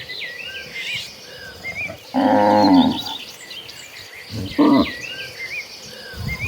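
Cattle calling: one short moo about two seconds in and a briefer low call a couple of seconds later, with small high chirps in the background.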